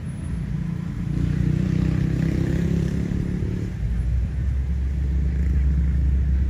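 Motor vehicle engine running under a steady low rumble; a higher engine tone joins about a second in and stops short of four seconds in.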